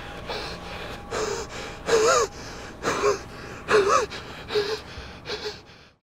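A man sobbing: a run of ragged gasping breaths, with wavering cries about two, three and four seconds in, cut off suddenly near the end.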